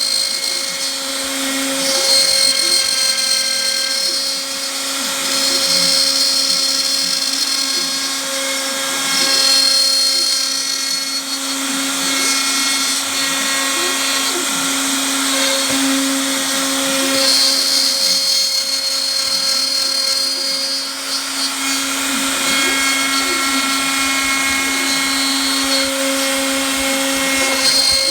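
Home-made CNC router running, its motors giving a steady hum under a high whine that strengthens and fades every few seconds as the machine moves.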